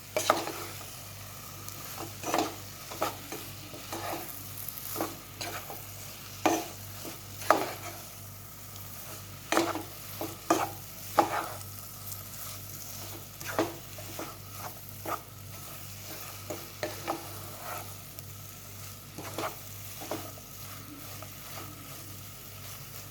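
A spoon stirring soya chunks through a thick spiced onion-tomato masala in a pan on the stove, with irregular scrapes and knocks of the spoon against the pan over a steady low sizzle.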